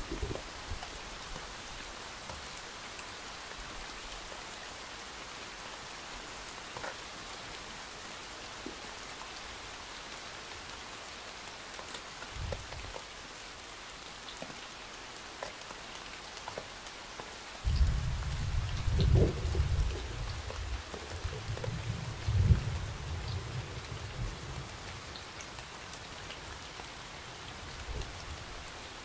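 Rain falling steadily, with a short low rumble of thunder a little before the middle and a longer rolling thunder rumble starting past the middle, the loudest part.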